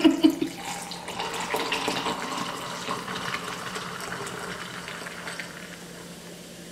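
Mountain Dew poured from an aluminium can into a tall glass of ice: a steady stream of carbonated soda filling the glass, tapering off near the end as the glass fills.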